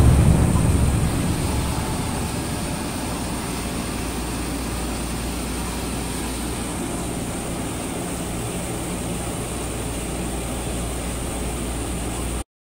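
Jonsen SGP1000 wide-belt sanding and deburring machine running, a steady drone with a low hum and a thin high whine, as a sheet-metal part feeds through on its conveyor. The sound cuts off suddenly near the end.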